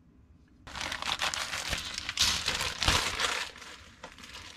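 Plastic crinkling and rustling as styrene model-kit parts trees and their plastic bag are handled. It starts about a second in, lasts about three seconds with a couple of light knocks, and then dies away.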